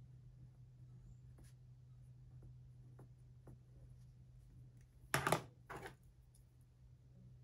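Faint scratching and ticking of a pen writing on notebook paper, then two loud knocks about five seconds in as the pen is set down on a wooden desk and another pen is picked up.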